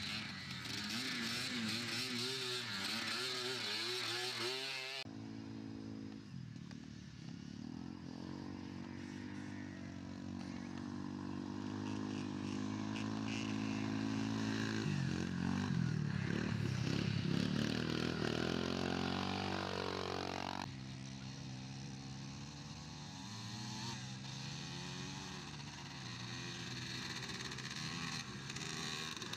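Racing quad ATV engines revving and easing off as the quads ride past, the pitch rising and falling with the throttle. The loudest pass comes about fifteen to twenty seconds in. The sound changes abruptly twice, about five seconds in and again near twenty seconds.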